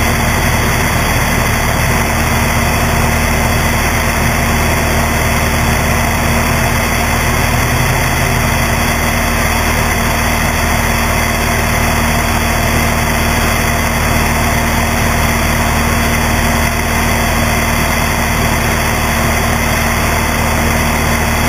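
Cessna 172's piston engine and propeller running steadily in flight, heard from a strut-mounted GoPro with heavy wind rush over the housing. The steady hum never changes in pitch.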